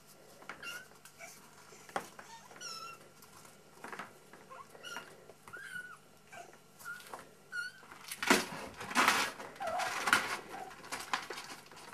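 Month-old kittens mewing again and again in short, high calls. About eight seconds in comes a loud scrabbling rustle of claws on the cardboard box wall as a kitten climbs up onto the rim.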